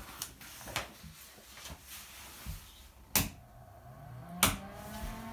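Two sharp clicks, as of a switch, then a bathroom extractor fan starting up: a hum that rises in pitch over about a second and settles into a steady drone.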